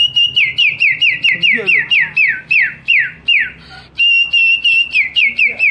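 A boy whistling a bird-song imitation with his mouth: a held high note, then a run of quick downward-sliding whistles that slow a little before a short break about three and a half seconds in, then another held note and more rapid falling whistles.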